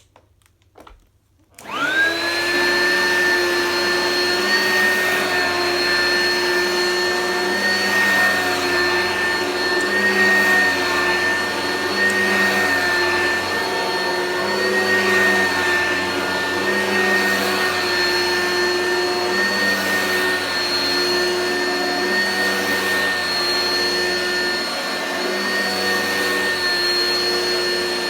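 Oreck vacuum cleaner switched on after a few faint clicks, its motor spinning up with a quickly rising whine, then running steadily with a high whine.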